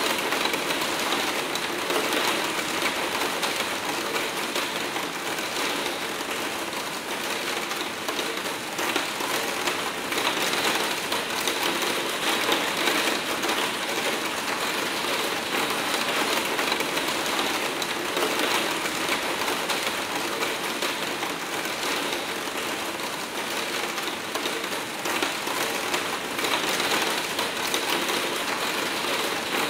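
Hard rain pattering steadily on a skylight window, a dense, unbroken drumming of drops on the pane.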